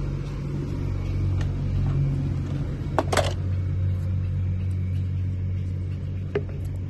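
A car engine running steadily with a low, even hum, broken by a sharp click about three seconds in and a smaller one near the end.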